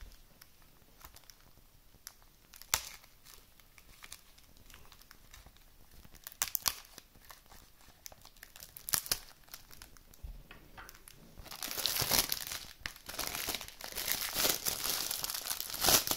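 Plastic wrapping on a Blu-ray case crinkling as it is handled and unwrapped: a few short crackles, then steady crinkling over the last four seconds or so.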